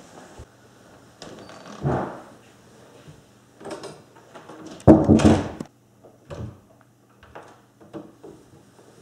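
An interior wooden door being handled, with a few separate knocks. The loudest and longest, about half a second, comes about five seconds in.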